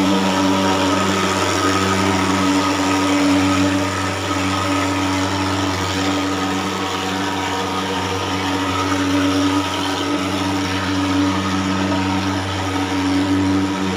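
Portable thermal fogging machine, a pulse-jet fogger, running steadily with a loud, even drone as it blows out insecticide fog against mosquitoes.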